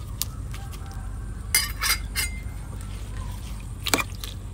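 Utensil clinking against a cooking pot while a curry is stirred. There are several sharp clinks, a cluster about a second and a half in and another near the end.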